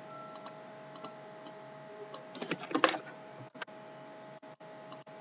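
Faint clicks of a computer mouse placing points with a drawing tool: scattered single clicks, then a quick run of clicks a little before the middle, over a faint steady hum.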